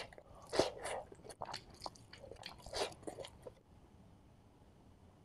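Close-miked eating sounds: a run of crackly clicks and crunches as rice is worked and eaten by hand, stopping about three and a half seconds in.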